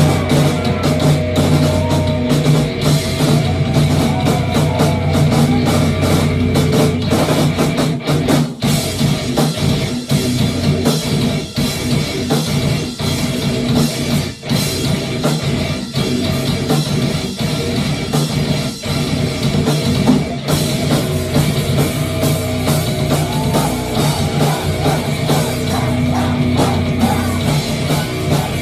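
Live rock band playing an instrumental stretch with drum kit and guitar, loud and dense, with a few short breaks in the beat.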